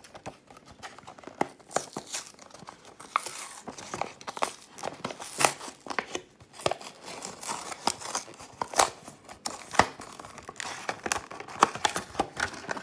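A toy's clear plastic blister pack and cardboard backing card being pried and torn apart by hand, with irregular crinkling and sharp crackles of the plastic.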